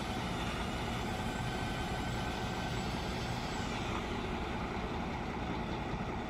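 Heavy diesel truck engine running steadily at idle, an even low hum with a faint steady whine above it.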